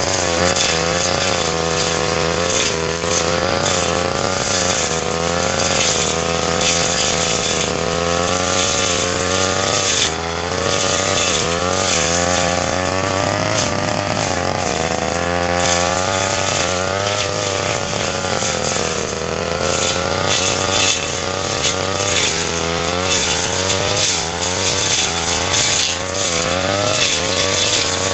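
Brush cutter engine running at high speed, its pitch wavering up and down over and over as the blade cuts through grass and ferns.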